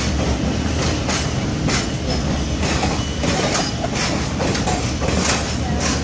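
Blue Ridge Scenic Railway passenger coaches rolling past: a steady rumble with repeated clicks a few times a second as the wheels cross rail joints, and a few brief faint wheel squeaks.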